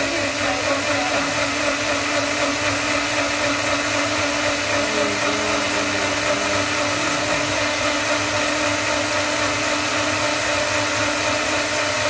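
Small personal bullet-style blender motor running steadily, blending cucumbers into a green juice.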